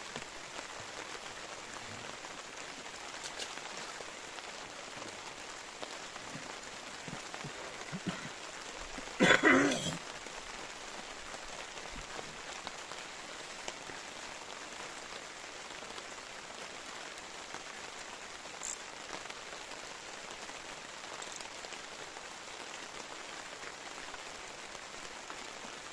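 Steady rain falling on a reservoir's water surface, an even hiss, with one brief louder sound about nine seconds in.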